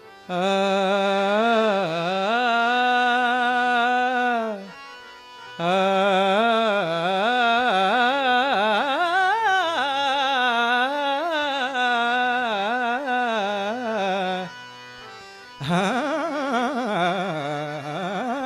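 Male voice singing a wordless opening alap to a Marathi devotional abhang, in three long held phrases with sliding, wavering ornaments and short breaths between them.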